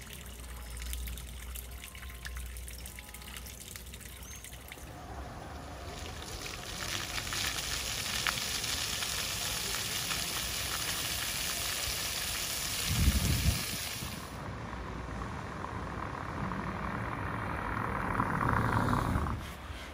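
Water pouring from a wall fountain's spout into a stone basin, then the loud hiss of ground-level fountain jets spraying onto paving. A thump comes about two-thirds of the way in, and near the end a car runs past and then cuts off.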